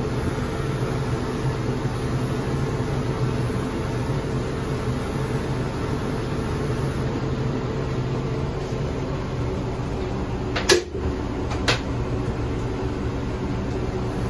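Wahl Bravura electric pet clipper with its 5-in-1 blade set to #40, running with a steady motor hum while it shaves the fur between a dog's paw pads. Two short sharp clicks come near the end, about a second apart.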